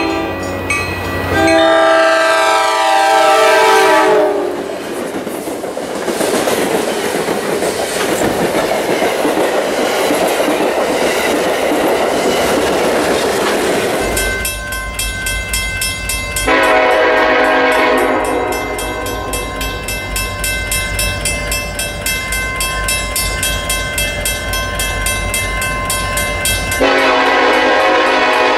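A commuter train's air horn sounds as the train approaches, then wheel and rail noise follows as it passes. About halfway through, the sound changes abruptly to a Norfolk Southern SD70ACe freight locomotive's air horn. It blows a long blast, then a shorter one, over the deep rumble of its diesel engine.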